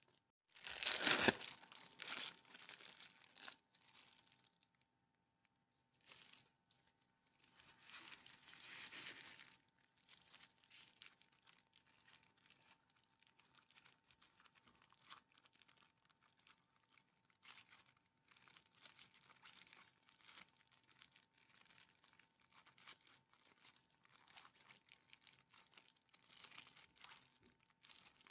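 Faint crinkling and rustling of clear disposable plastic gloves and baking paper as gloved hands lift, fold and gather a filled square of dough. A louder rustle comes about a second in, then small irregular crinkles.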